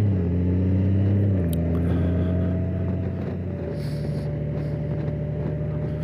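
Honda Gold Wing's flat-six engine running on the move, heard from the rider's seat. The engine note steps down in pitch twice, near the start and about a second and a half in, and then holds steady.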